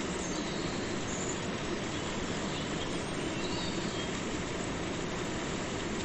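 Waterfall with a steady, unchanging rush of falling water.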